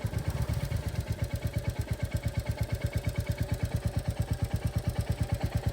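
A Royal Enfield Classic 350's single-cylinder engine idling with an even, rapid beat and a tik-tik ticking. A local mechanic takes the ticking for tappet noise, the two valve clearances needing adjustment.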